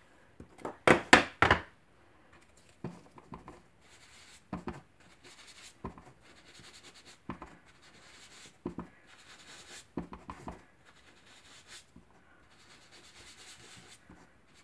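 A few sharp plastic clacks about a second in as a Stampin' Up! ink pad case is handled and set down on the craft mat, then soft scuffs and taps, roughly one every second and a half, of a sponge dabbed on the ink pad and rubbed over cardstock.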